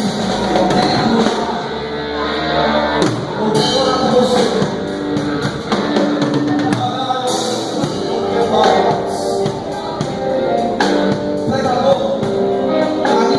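Music with a drum kit and guitar, and singing.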